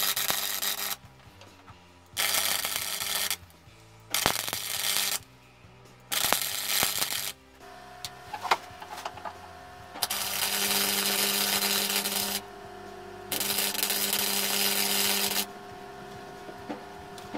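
Electric arc welding in six runs, each a steady hiss that starts and stops abruptly: four short runs of about a second, then two longer runs of about two seconds. The welds join two stacked 12-layer damascus billets into one 24-layer billet.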